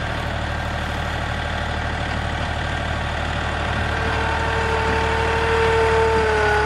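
John Deere 3025E compact tractor's three-cylinder diesel running as it drives forward, pulling on a strap tied to its three-point hitch. About four seconds in a steady whine joins the engine sound and it grows louder.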